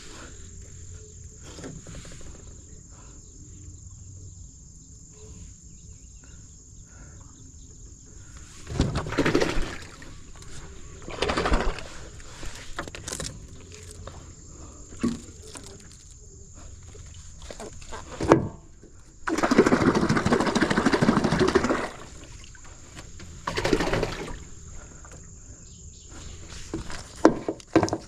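Insects, typical of crickets, trilling steadily in a high thin tone, with several short bursts of rustling noise and one longer burst of about two and a half seconds a little past the middle.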